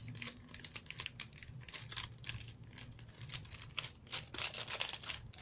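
Clear plastic sleeve crinkling and old paper banknotes rustling as a stack of notes is handled, a run of irregular small crackles.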